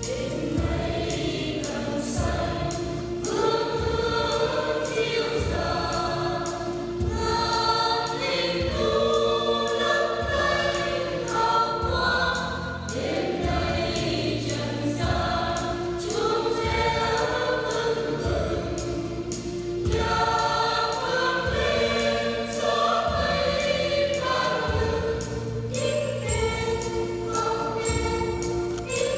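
Vietnamese Catholic church choir singing a hymn in parts over musical accompaniment with a steady low beat.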